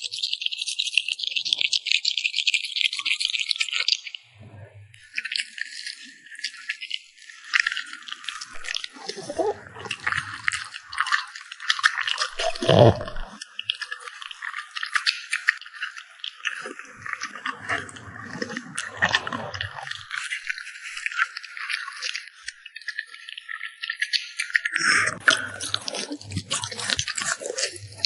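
French bulldog chewing and crunching food up close: a steady run of crisp, rapid crunches and clicks, with a short break about four seconds in.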